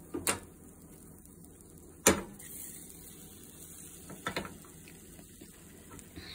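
Sharp knocks of a small nonstick frying pan and spatula being handled on a gas stove's metal grates, about a quarter second, two seconds and four seconds in, the one about two seconds in the loudest. A faint steady hiss lies under them.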